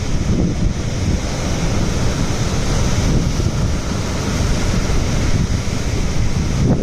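Rough sea surf breaking and washing up onto a rocky shore, a steady loud rush, with wind buffeting the microphone in a low rumble.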